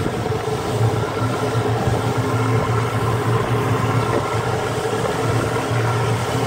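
Motorboat engine running steadily: a low, even hum with a rushing noise over it.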